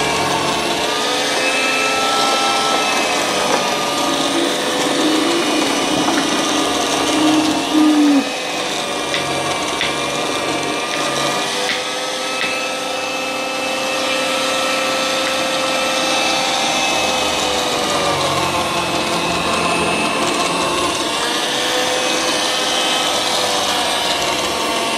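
Two kitchen juicers running together: an electric citrus juicer whirring, its motor pitch sagging and recovering as orange halves are pressed down on the reamer, and a vertical slow juicer grinding carrots. There is a louder stretch of grinding that ends about eight seconds in.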